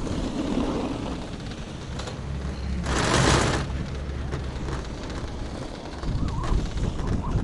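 Wind buffeting the microphone over a steady low rumble while riding a Taihei Sakudo high-speed quad chairlift, with a brief louder rush of noise about three seconds in.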